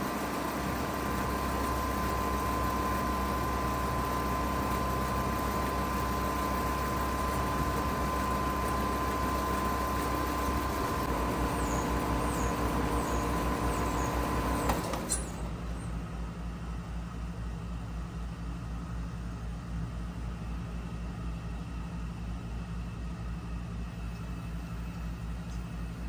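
Payne PH13 heat pump outdoor unit running in heat mode with a steady hum and whine. About halfway through it shuts down with a click, and the higher whine cuts off abruptly. A lower, evenly pulsing hum carries on after it.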